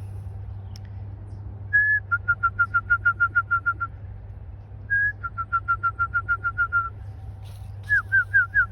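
Clear whistled call: a short held note, then a quick run of about a dozen identical short notes, given twice, then a few quick downward-sliding notes near the end.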